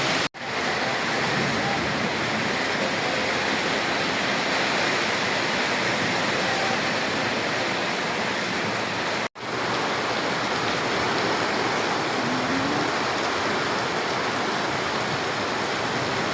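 Heavy rain pouring down in a storm, a steady dense hiss that cuts out sharply for a moment twice, about a third of a second in and about nine seconds in.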